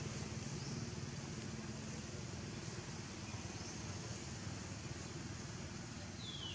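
Steady low hum of a running engine, with a brief high chirp that falls in pitch near the end.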